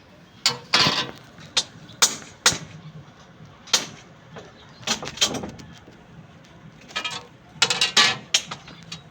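About a dozen irregular knocks and clicks, some with a brief ring after them, like parts and tools being handled and tapped in a workshop.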